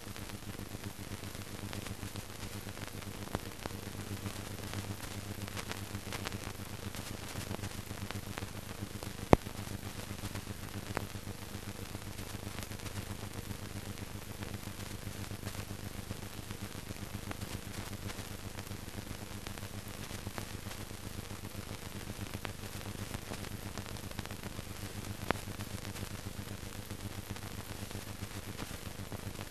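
Steady hiss and low mains-type hum with occasional clicks and crackle: the surface noise of an old film soundtrack. One sharp click comes about nine seconds in, with fainter ones near three and a half and twenty-five seconds.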